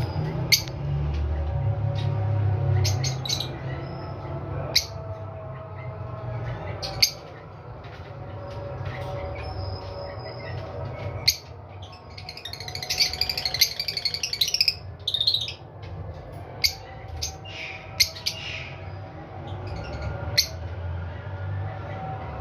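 Violet Fischer's lovebirds giving sharp, short squawks and chirps, with a dense run of chattering about halfway through, over a steady low hum.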